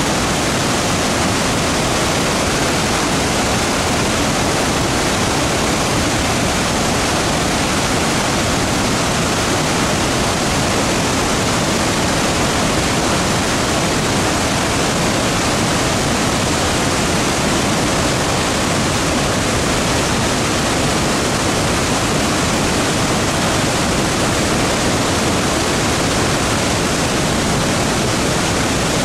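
Victoria Falls on the Zambezi River: a loud, steady rush of heavy falling water.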